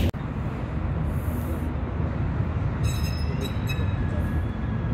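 Tram approaching along street track, a steady low rumble of its wheels and running gear on the rails. A few short high-pitched squeaks come about three seconds in.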